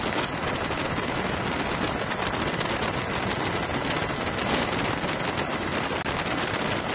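A steady, loud hiss of noise with a fine crackle running through it, unchanging throughout.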